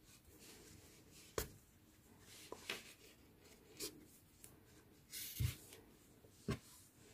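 Faint rustling of hands working a crocheted amigurumi piece, with about five brief soft knocks and rubs as a wool needle and yarn are drawn through the stitches; the loudest comes a little past the middle.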